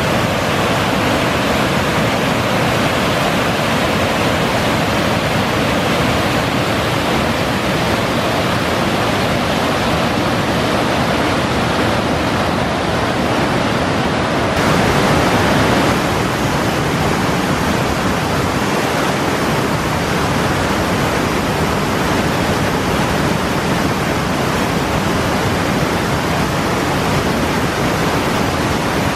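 Steady rush of a cascading waterfall, white water pouring over rock. About halfway through, the rush shifts and is briefly louder.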